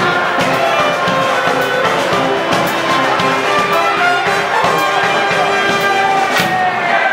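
Street brass band playing a tune, brass melody lines over a steady drum beat.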